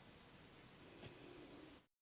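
Near silence: faint steady hiss of room tone with one faint click about a second in, then the audio cuts off to dead silence near the end.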